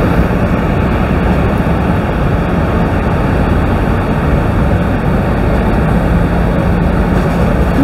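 Steady roar of the Rhine Falls waterfall and the churning water below it, with a tour boat's engine droning faintly underneath.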